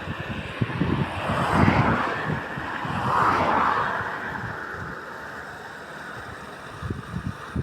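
Wind buffeting the microphone, with two road vehicles passing by one after the other, each swelling up and fading away.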